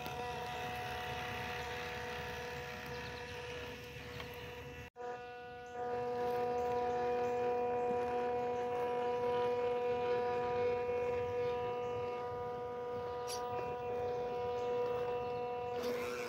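FMS Chevrolet K10 mini RC crawler's small electric motor and drivetrain whining at a steady pitch as it crawls over roots. There is a short break about five seconds in, and the whine is louder after it.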